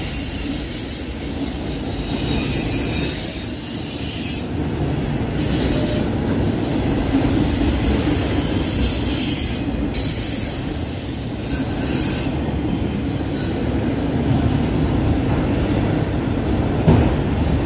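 Empty autorack freight cars rolling past close by: a steady rumble of steel wheels on rail, with thin high-pitched wheel squeal strongest in the first few seconds. A single sharp knock comes near the end.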